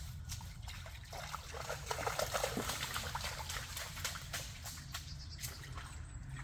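Rainwater splashing and trickling, a quick run of small splashes that is busiest about two seconds in.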